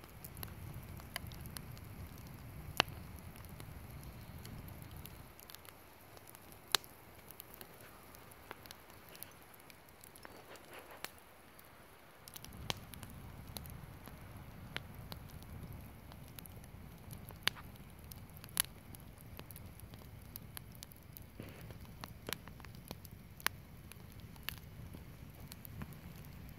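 Wood campfire crackling, with sharp pops at irregular intervals, the loudest about three and seven seconds in, over a low rumble that drops away for several seconds in the middle.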